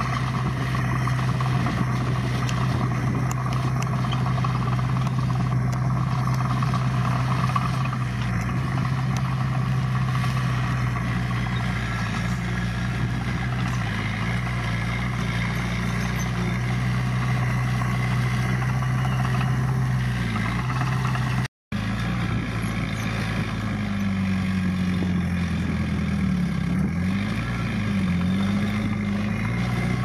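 Diesel engine of earthmoving machinery running steadily. A brief cut comes about two-thirds in, after which the engine's pitch rises and falls a few times.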